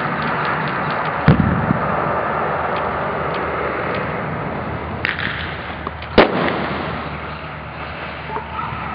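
Two loud sharp bangs in an airsoft game, one about a second in and one about six seconds in, with a smaller crack shortly before the second, over a steady rushing noise.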